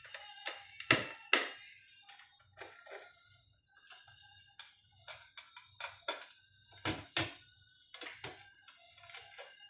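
Irregular clicks and knocks of hands and tools handling the monitor's casing and circuit boards during a board swap, the loudest about a second in and about seven seconds in. Faint steady tones sound behind them.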